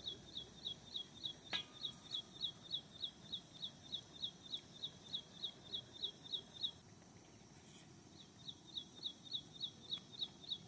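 A small bird calling: a fast, even series of short high notes, about three or four a second. The series stops about two-thirds of the way through and starts again after a pause of a second or so.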